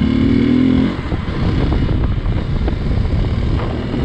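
Hero XPulse 200's single-cylinder engine, ridden off-road: its note rises under throttle, drops off about a second in, then runs on as an uneven rumble with rattling and jolts from the rough trail.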